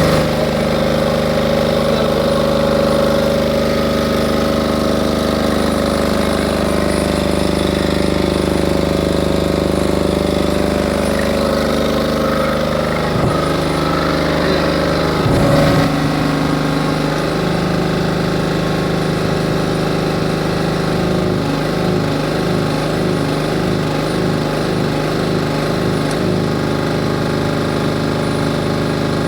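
Powerreko 6.5 kVA silent diesel generator running steadily. About halfway through there are a couple of short knocks and the engine note shifts, then takes on a pulsing beat.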